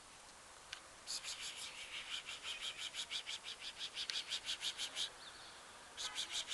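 A rapid, even run of raspy chirps, about six a second, from a small animal, likely a bird or insect. It starts about a second in and goes for roughly four seconds, then a second short run comes near the end.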